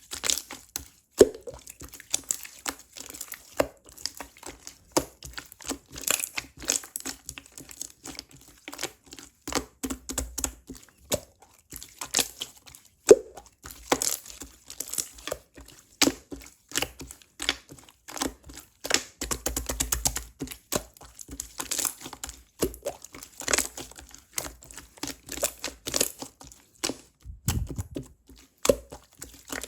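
Clear slime being squished and pressed by hand, giving many sharp wet pops, clicks and crackles in quick succession.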